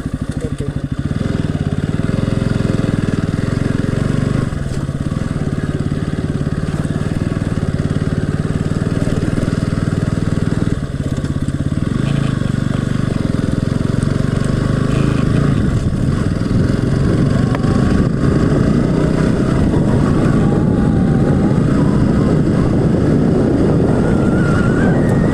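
Motorcycle engine running steadily while riding along a road, with brief dips in loudness about four and eleven seconds in.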